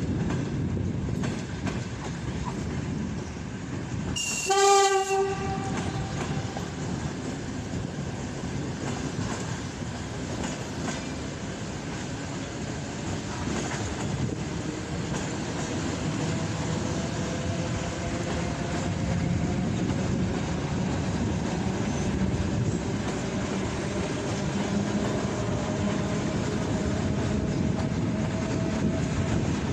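Passenger train running past with a steady rumble and clatter of wheels on the rails. About four seconds in, the locomotive's horn gives one short blast of under a second, the loudest sound. In the second half a faint rising whine sits over the rumble.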